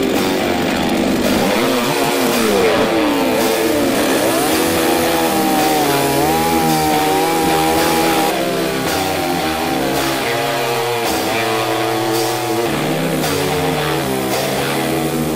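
Petrol chainsaw revving and cutting through a dry driftwood root, with rock music playing over it.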